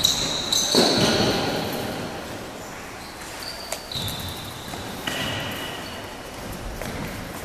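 Futsal ball being kicked and bouncing on an indoor court, with sneakers squeaking on the floor in several short high squeals, the sounds echoing in a large hall. The loudest stretch is in the first second.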